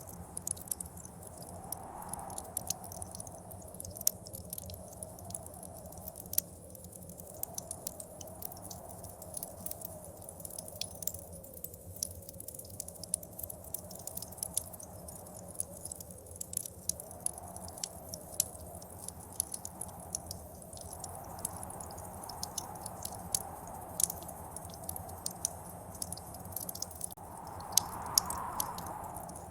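Wood fire crackling with many scattered sharp pops, over the wind of a blizzard howling, which swells and fades several times and is strongest near the start and the end.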